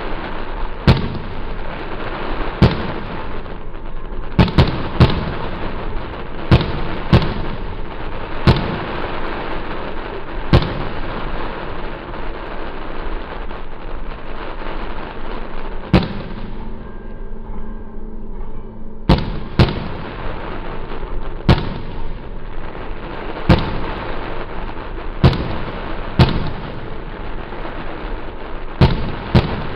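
Aerial fireworks bursting in sharp bangs, one every second or two, over a continuous rumble of noise. There is a brief lull a little past halfway before the bangs resume.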